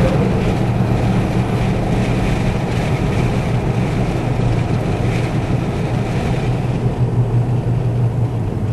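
Engine and road noise heard from inside a moving car's cabin: a steady low drone with even tyre and wind rush.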